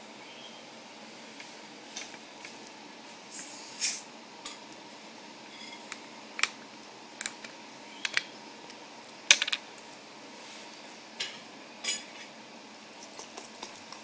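Sulphur-crested cockatoo's beak biting and tearing at a sausage held in its foot: irregular sharp clicks and crunches, a second or more apart, the loudest about two-thirds of the way through.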